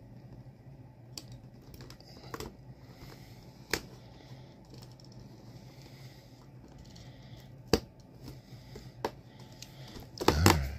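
Utility knife scraping and cutting along the perforations of a cardboard advent-calendar door, with a few sharp clicks. Near the end there is a louder burst as the cardboard door is pried and torn open by hand.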